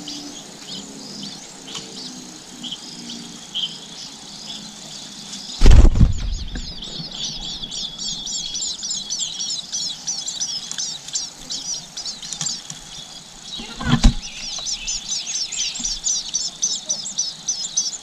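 Nestling birds begging with rapid, high-pitched chirps that break out in a dense chorus after a loud thump about six seconds in. A second thump near the end briefly interrupts them before the chirping resumes.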